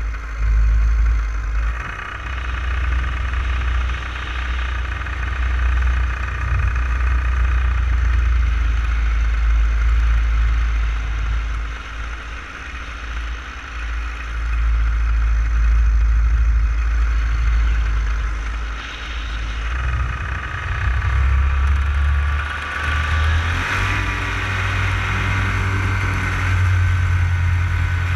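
Paramotor engine and propeller running steadily in flight, its note shifting and rising toward the end, with wind buffeting the microphone.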